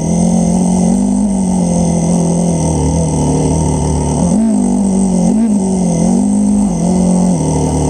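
Motorcycle engines running at low speed in a slow group ride. The nearest engine holds a steady note with a few brief throttle blips, about four, five and seven seconds in.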